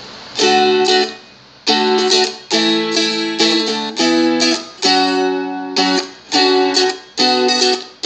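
Seagull Merlin, a small four-string fretted dulcimer-style instrument, strummed in chords: short phrases of strums, each cut off abruptly, with deliberate gaps between them.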